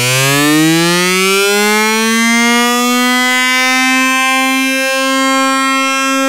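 A single buzzy electronic synthesizer note in dance music, sliding up in pitch over the first three seconds or so, then held steady at one pitch until it cuts off just after the end.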